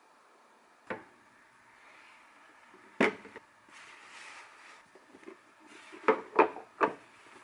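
Glass food containers with plastic lids knocking against the counter and each other as they are packed into a canvas tote bag, with the bag's fabric rustling. There are a few sharp knocks: one about a second in, a loud one about three seconds in, and three in quick succession near the end.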